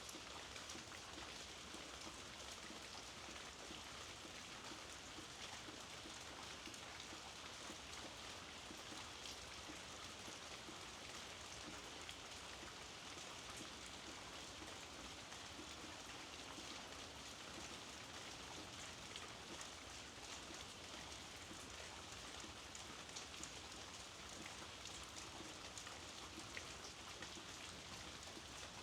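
Steady, soft rainfall, with many small drops pattering on surfaces.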